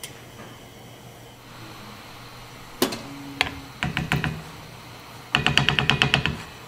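Kitchen utensils clicking and tapping against an earthenware pot and plate: a few sharp clicks midway, then a fast run of about ten taps a second near the end.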